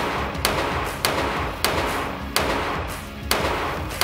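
Handgun shots on an indoor range, a string of about six sharp cracks roughly every half second to a second, each with a short echo, over background music.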